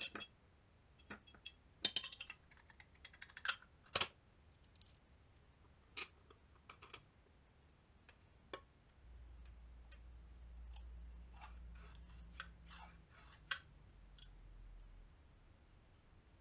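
Aluminium jig parts being handled, slid and set down on a glass sheet: scattered sharp clicks and light knocks of metal on metal and glass. A low hum runs through the middle.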